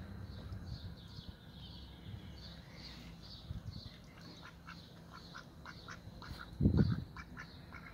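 Ducks quacking in a series of short calls that start about three seconds in. A single loud, low thump comes near the end.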